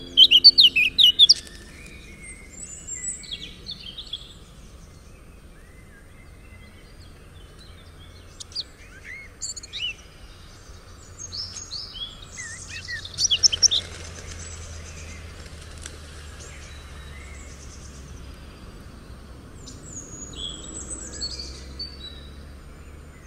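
Birds chirping in scattered short calls over a steady low hum; the last notes of a song fade out about a second in.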